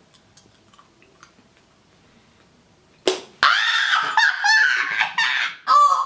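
Faint clicks of chewing for about three seconds, then a woman's loud, high-pitched squeal of disgust at a bad-tasting jelly bean, lasting a couple of seconds and wavering in pitch.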